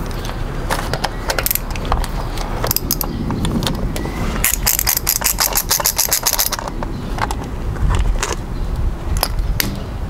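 Ratcheting hand driver clicking as the bolts of a motorcycle's front sprocket cover are undone, with scattered clinks of metal bolts and tools. A fast, even run of ratchet clicks comes about halfway through.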